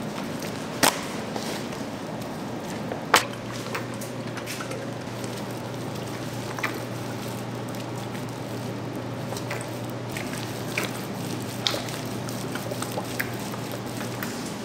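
Raw pork spare ribs handled with gloved hands on a foil-lined steel tray: soft wet handling noises and a few sharp knocks, the two loudest about one and three seconds in, over a steady low hum.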